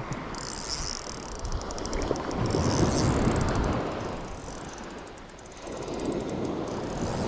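Shimano Vanford 2500 spinning reel giving line, its drag clicking rapidly as a large fish pulls braid off, over wind and sea noise.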